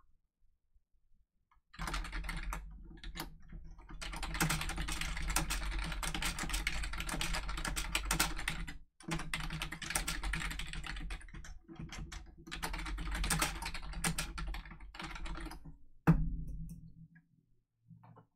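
Rapid typing on a computer keyboard in several runs with short pauses, ending in one sharper, louder click.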